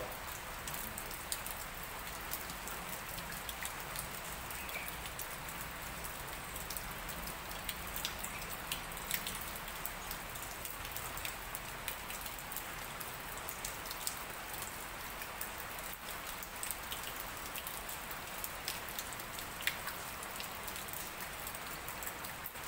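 Steady light rain, with single drops landing as sharp ticks here and there throughout.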